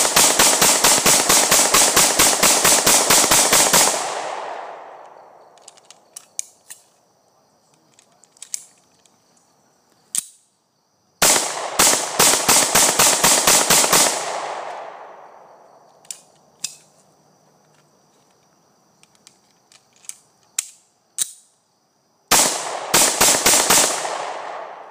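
Ruger P95DC 9mm pistol fired in rapid strings of shots, several a second, in three bursts with the echo trailing off after each. The last short burst near the end stops abruptly at a stoppage, which the shooter blames on the aftermarket ProMag high-capacity magazine.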